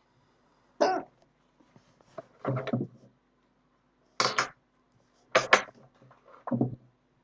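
A woman hiccuping repeatedly: five short, sharp hiccups about a second or so apart.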